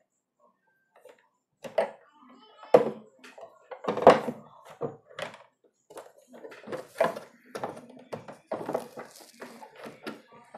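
Irregular hard-plastic knocks and clicks, starting about two seconds in, as a water purifier's mineral cartridge, push-fit tube fittings and plastic housing are handled.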